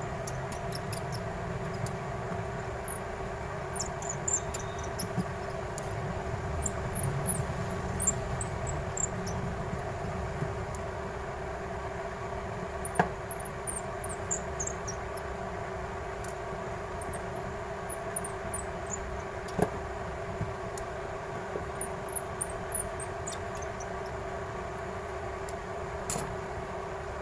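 Steady hum of a room fan, with a few light clicks from small tools as a phone's cover and screws are worked on; two sharper clicks come about halfway through and again some seconds later.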